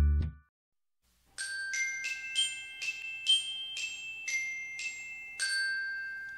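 The end of the background music, then after a second's pause a short logo jingle of about ten bell-like struck notes, like a glockenspiel, the last one ringing out and fading.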